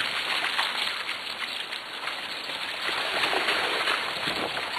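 Steady rushing noise of a dog-powered rig rolling fast over a wet, muddy, leaf-covered track behind a running sled-dog team.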